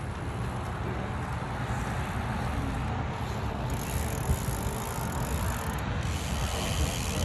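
Steady road and wind noise while riding a road bike: a low rumble, with a higher hiss joining about halfway through.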